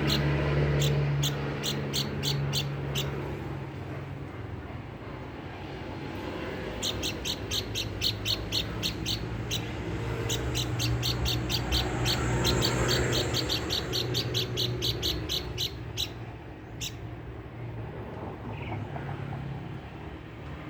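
A babbler (pelanduk bukit) calling with rapid series of short, sharp chip notes, about four or five a second: one run at the start, a longer run from about seven seconds in, then a single note near the end. A low steady hum runs underneath.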